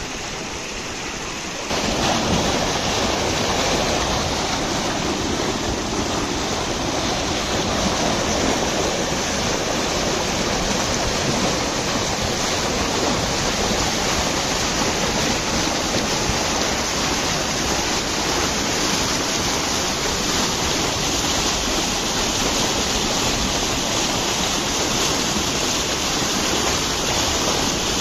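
Waterfall: a steady, loud rush of water tumbling over rocks, which jumps louder about two seconds in.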